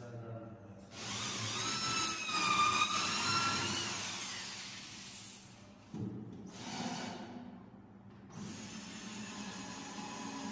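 Cordless drill driving screws through plywood stair treads, in three runs: a long one, a short one, then another long one. Its whine wavers in pitch as the motor slows and picks up under load.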